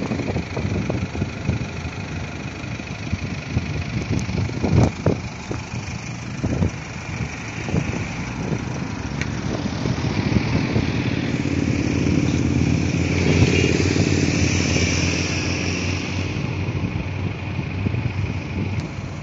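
BMW 320d four-cylinder diesel engine idling steadily, with irregular thumps of wind or handling on the microphone; the sound grows louder for a few seconds past the middle.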